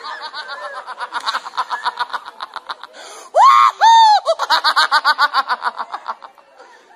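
A person laughing in rapid, high-pitched peals, about six to eight a second. About three and a half seconds in, the laughter breaks into two long, loud shrieks, then the peals resume and die away near the end.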